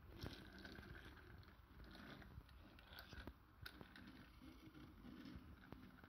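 Faint clicks and scrapes of small plastic toy animals being handled, slid across a hard floor and hooked together.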